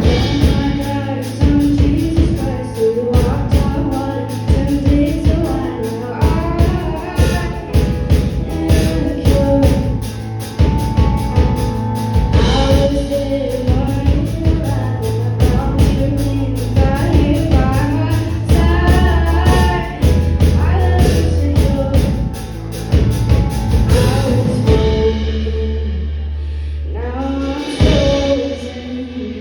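Live band playing an original song with singing, drums keeping a steady beat under the bass and vocals. The drums drop out near the end while the bass and voices carry on.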